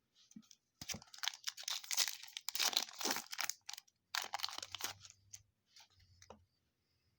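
A foil trading-card pack wrapper being torn open and crinkled, with a long spell of crackling and then a shorter second burst.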